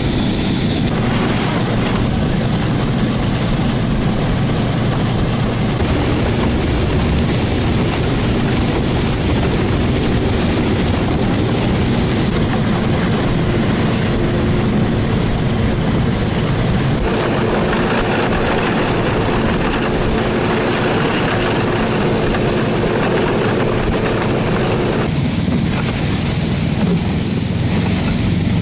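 Small engine of a Barbos motorized tow (motor-dog) running steadily as it pulls sleds over snow and ice. The sound changes abruptly a few times, about a second in, then around 12, 17 and 25 seconds in.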